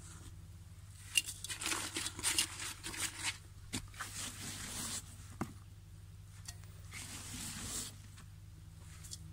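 A rubber-gloved hand scrunching and mixing coco peat into soil in a plastic tub: irregular dry rustling and crunching, busiest in the first half, with a couple of sharp ticks.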